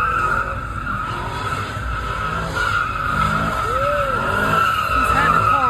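Car tyres squealing in a long, steady screech as cars drift, with engines revving up and down over it.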